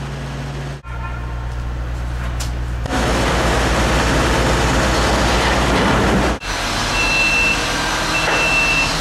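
Construction machinery engines running steadily, louder from about three seconds in, with a scissor lift's motion alarm giving two long, even beeps near the end as the platform is raised.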